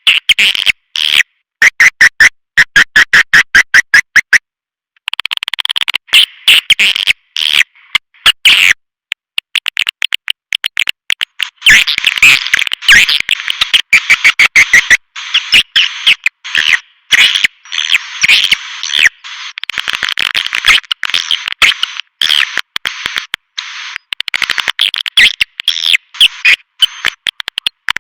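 Swiftlet caller track: a dense stream of rapid, high-pitched swiftlet chirps and twitters, repeated many times a second, with no low end and stopping dead in brief silent gaps. It is the lure sound played in swiftlet houses to draw swiftlets in to roost and nest.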